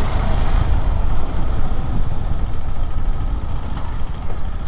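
KTM 390 Adventure X's single-cylinder engine running steadily as the motorcycle is ridden, with a heavy low rumble of engine and road noise.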